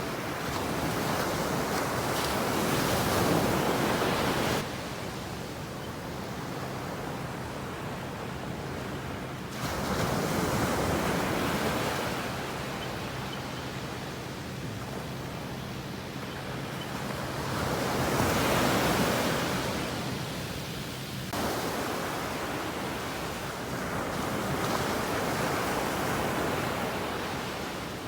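Ocean surf breaking on a beach, with waves rushing in and washing back in long swells every several seconds. The sound drops off abruptly a few times between swells.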